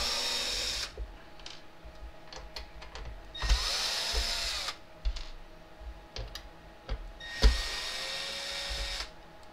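Cordless drill/driver backing out Phillips screws from a subwoofer's mounting in a plastic enclosure. The motor runs in three short bursts of about a second each, its pitch rising and falling, with small clicks and knocks of handling between.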